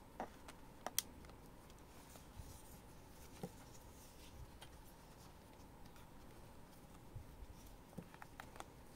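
Quiet handling sounds of a Canon mirrorless camera and its lens being gripped and picked up: a few small clicks and taps, the sharpest about a second in and several more near the end, over faint room hiss.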